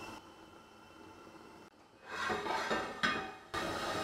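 A heavy-bottomed frying pan clattering and knocking on a gas stove's metal grate, with one sharp knock about three seconds in. A steady hiss sets in near the end.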